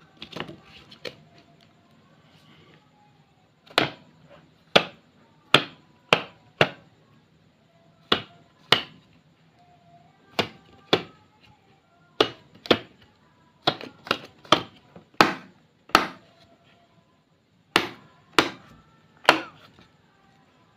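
Sharp knocks against a hard surface, about twenty of them, often in pairs about half a second apart, from soft clay and slime being handled, with faint music underneath.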